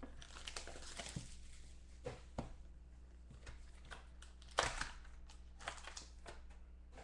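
Plastic wrapping crinkling and tearing as hands unwrap a box of football trading cards, with scattered small clicks and one louder rustle about four and a half seconds in.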